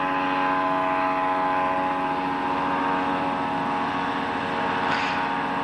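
Light aircraft's 100 hp two-stroke engine and propeller droning steadily as the plane flies past in climbing flight.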